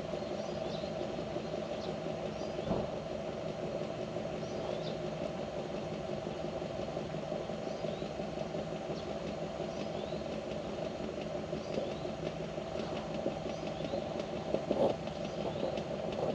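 A steady engine hum running without change, with faint short high chirps scattered through it.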